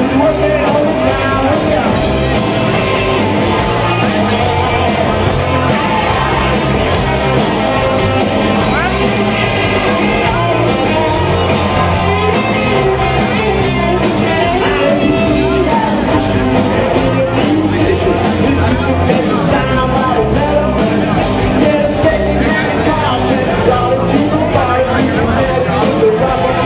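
Live band playing a song with singing over it, drums keeping a fast steady beat under bass and guitar.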